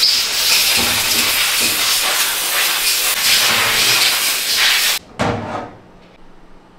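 Loud, steady hiss of air, like a compressed-air blow gun, that cuts off suddenly about five seconds in, followed by one short second blast.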